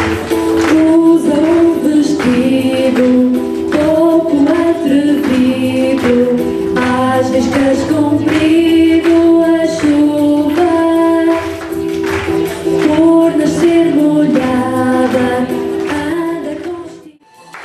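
A song sung over an instrumental accompaniment, with a woman singing the melody into a microphone. The music cuts out briefly just before the end.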